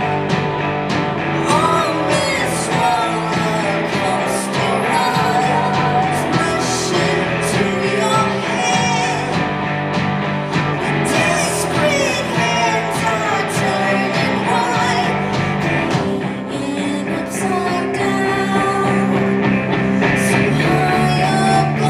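Live rock band playing a song at full volume, with singing over guitars.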